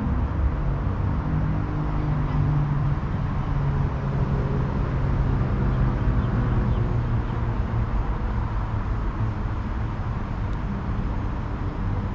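Steady outdoor background noise with a low droning hum and rumble that fades somewhat toward the end.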